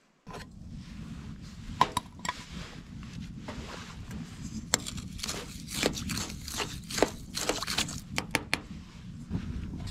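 A long metal spoon stirring and scraping in a metal pot on a wood stove, with many sharp clinks and scrapes over a steady low rumble.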